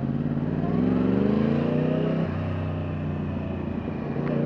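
2009 Yamaha R1's crossplane inline-four with Akrapovic carbon slip-on exhausts accelerating: the revs rise for about two seconds, drop sharply at a gear change, hold steady, then climb again near the end.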